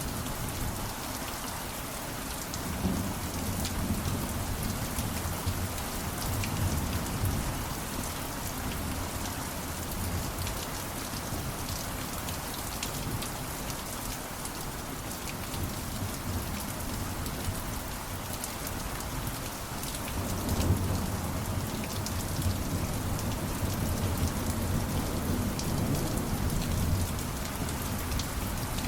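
Steady rain falling, with low rumbles swelling about two seconds in and again from about twenty seconds.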